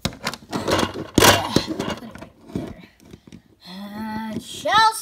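Handling noise: rustling, clicks and knocks as a phone and plastic dolls are moved about, with the loudest knock about a second in. Near the end a child's wordless voice is heard, a held hum and then a rising call.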